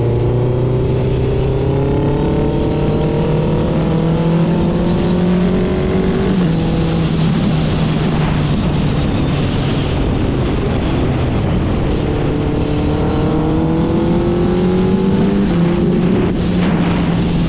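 Suzuki Hayabusa Gen3's 1340 cc inline-four through an Ixil exhaust, pulling along under throttle. The engine note climbs steadily, drops back about six seconds in, and climbs again in the second half.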